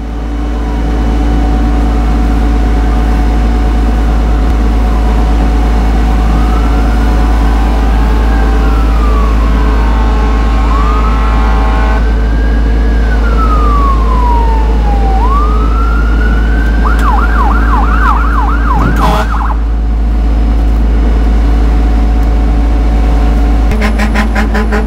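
Emergency vehicle siren wailing in slow rising and falling sweeps, switching to a fast yelp about seventeen seconds in, over a steady engine drone and low rumble. A sharp knock comes about two seconds later, and a horn-like blast begins near the end.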